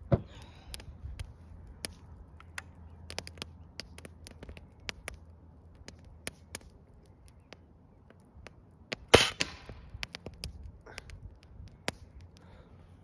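Air rifle fired once about nine seconds in: a single sharp crack, the loudest sound here, with a short tail after it. Scattered faint clicks run through the rest.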